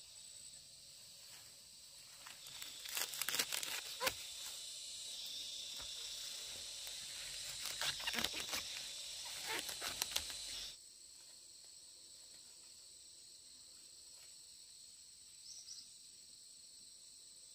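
Steady high-pitched insect drone. From about two seconds in, louder rustling and crumpling handling noise with sharp clicks joins it and stops abruptly about ten seconds in.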